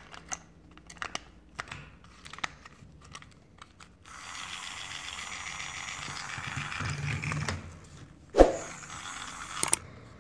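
Small plastic clicks as a toy train's body and chassis are handled and snapped together. Then a battery-powered toy train's small motor runs with a steady whir for about four seconds, followed by two sharper plastic clicks.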